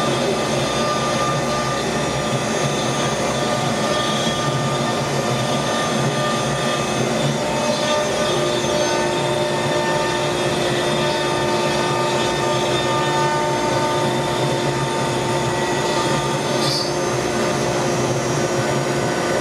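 A dust collector drawing wood shavings up a grounded hose from a CAMaster Stinger CNC router, running with the router: a loud, steady rush of air with several steady whining tones over it. A lower tone joins about eight seconds in.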